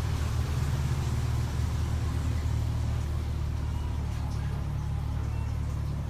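Steady low hum of a car engine idling.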